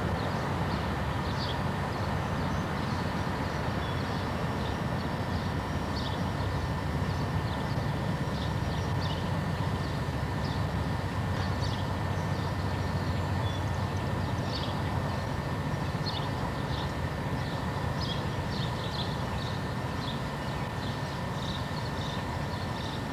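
A train rolling steadily along the track: a continuous rumble of wheels on rail with faint, short high squeaks now and then.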